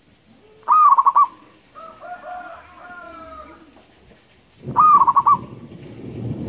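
Zebra dove (perkutut) cooing: a loud, quickly pulsing coo about a second in and again about five seconds in, with softer drawn-out cooing notes between. A low rushing noise sets in with the second coo.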